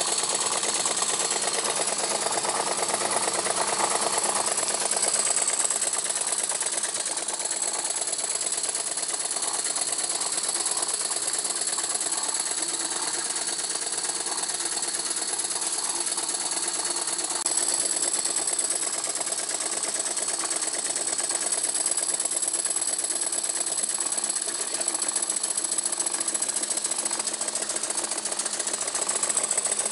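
Jensen #50 model live-steam engine running steadily under steam, with a fast, even mechanical clatter that holds steady throughout.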